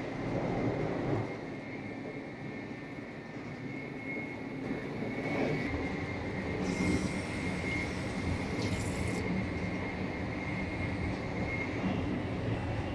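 Steady rumble of a Tokaido Shinkansen bullet train running at speed, with a thin steady high whine, heard inside its washroom. About six and a half seconds in, a washbasin tap runs water over a hand for about two and a half seconds.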